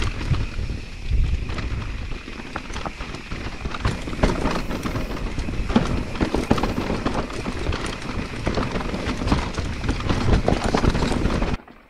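Electric mountain bike clattering down a rocky trail: many sharp knocks and rattles from the wheels and frame striking rocks over a steady low rumble. It cuts off suddenly near the end.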